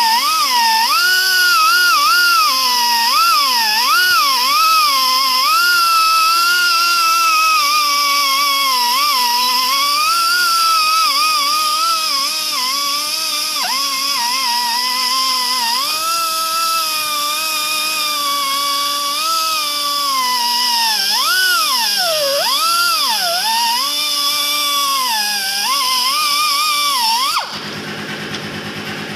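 Pneumatic die grinder whining as its stone grinds out the tie rod seat in a backhoe steering spindle, its pitch wavering up and down as the bit is pressed in and eased off. Near the end the whine cuts out, leaving a lower hiss.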